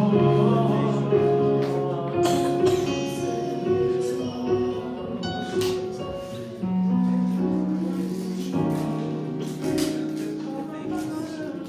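Soft gospel worship music with sustained chords, possibly keyboard, playing under the service.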